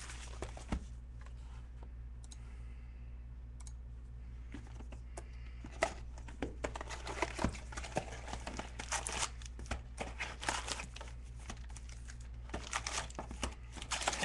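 Foil trading-card pack wrappers being torn open and crinkled: a few scattered crackles at first, then dense tearing and crinkling from about six seconds in. A steady low hum underneath.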